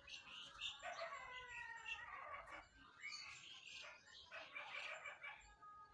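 A rooster crowing faintly about a second in, followed by more fowl calls and bird chirps.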